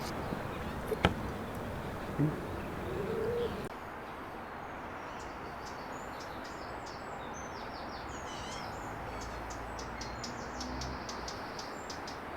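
Small birds chirping and twittering in quick, repeated short calls over a steady outdoor background hiss, the calls beginning about four seconds in. A couple of faint knocks come in the first few seconds.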